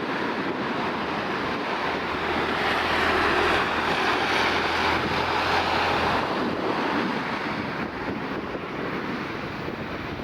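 Airbus A380 jet engines running at takeoff power, a broad roar that swells to its loudest a few seconds in and then slowly eases off.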